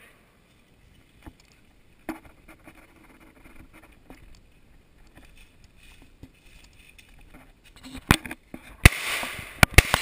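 Footsteps and rustling on a leaf-covered dirt trail as the shooter runs to the next position. About eight seconds in, several AR-15 rifle shots follow in quick succession, each echoing through the woods.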